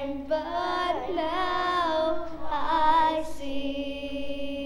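Children's choir singing, closing on one long held note near the end.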